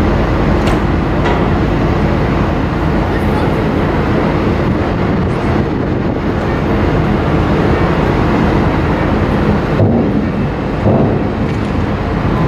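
Car ferry's engines running steadily as it gets under way: a loud, even low drone with a constant hum.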